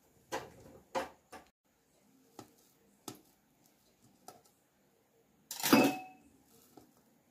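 A metal utensil clinking and scraping on a stainless steel plate as a steamed idli is cut open: several light taps, then a louder scrape against the plate near the end.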